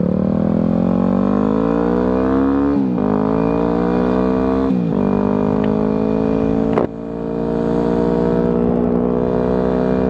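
2009 Yamaha WR250F's single-cylinder four-stroke engine accelerating through the gears: its pitch climbs, drops at upshifts about three and five seconds in, and drops again at a third shift marked by a sharp click about seven seconds in, then climbs slowly.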